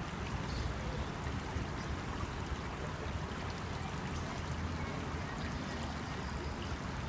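Steady sound of flowing river water, an even rush with no separate events.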